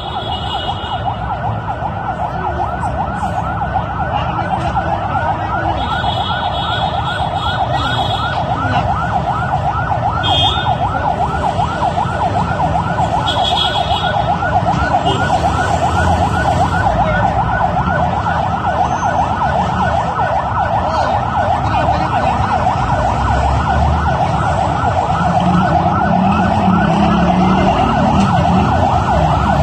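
Siren sounding continuously in a fast up-and-down yelp, loud over a low background rumble.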